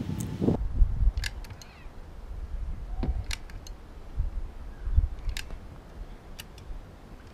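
Scattered light clicks and knocks, a second or so apart, with a couple of dull low thumps and a low rumble in the first moment, as from hands handling tools and parts.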